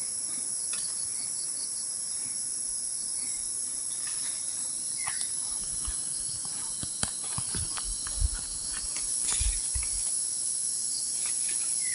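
Steady high-pitched drone of insects, with rustling and scattered sharp clicks and low knocks from tree branches being handled, the sharpest two clicks about seven and eight seconds in.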